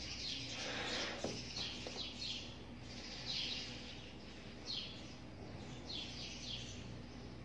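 A small bird chirping repeatedly in the background, short falling chirps about once a second. Under it, in the first second or so, soft breath is blown into a rubber balloon.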